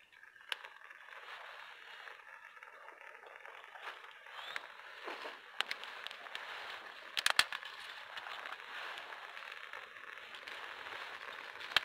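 Dry grass tinder and kindling catching fire from a large fire starter, burning with a steady hiss and crackle and a few sharp snaps, the loudest about seven seconds in.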